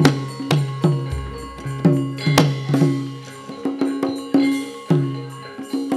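Javanese gamelan accompaniment for a wayang fight scene: kendang drum strokes under a rapid, uneven clatter of sharp clicks from the dalang's keprak plates and knocks on the puppet chest. A deep gong stroke comes in about a second in.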